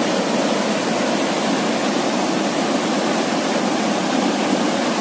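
Water pouring over a small weir, a steady rushing with no change in level.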